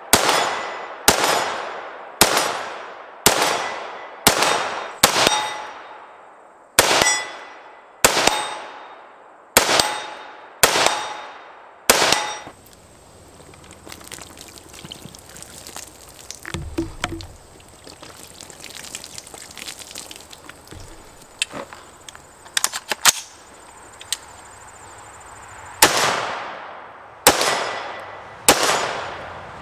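Diamondback DB15 AR-15 rifle in 5.56 NATO firing about a dozen deliberate single shots, roughly one a second, each with a ringing echo that fades away. After a pause of about thirteen seconds holding only quieter noises, four more shots come near the end.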